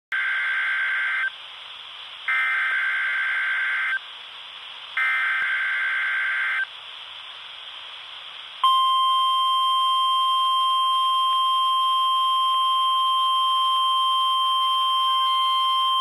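NOAA Weather Radio's required weekly test signal played through a Midland HH50 weather radio's small speaker: three short bursts of buzzy SAME digital header tones, then, a little past halfway, a steady 1050 Hz warning alarm tone.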